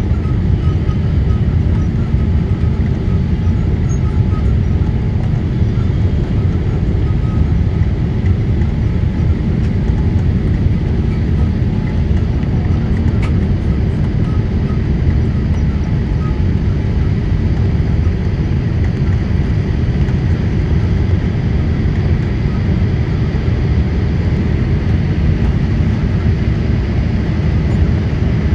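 Steady cabin roar inside a Boeing 787-8 in its climb after takeoff: engine noise from its Rolls-Royce Trent 1000 turbofans and rushing air, deep and even, with a faint steady whine above it.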